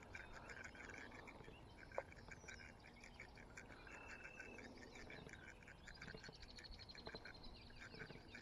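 Faint chorus of short, rapid chirping animal calls, with a quicker, higher trill late on and a single soft click about two seconds in.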